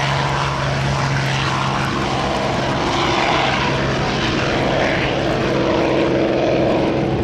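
P-51 Mustang's piston engine running at full power on its takeoff run, mixed with a nearby vintage aircraft's engines running. A steady low hum fades out in the first second or two, and the engine sound grows stronger toward the end.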